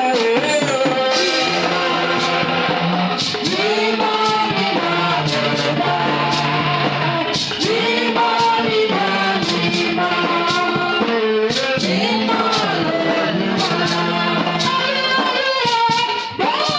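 Praise and worship music: voices singing a melody over a band with steady bass notes and a regular drum beat.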